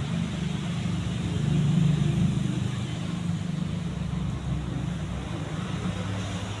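Atlantic Air Alaska Kiev decorative ceiling fan running: a steady low motor hum with airy noise, swelling briefly about two seconds in.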